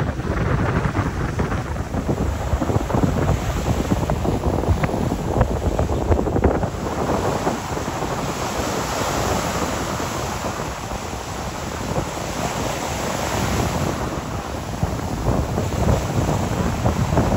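Ocean surf breaking and washing up the sand in a continuous rush, with gusty wind buffeting the microphone.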